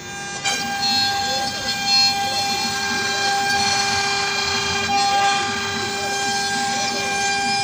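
Axiom AR8 CNC router machining wood: a steady spindle whine with the stepper motors' pitch rising and falling as the axes move back and forth. It gets louder about half a second in.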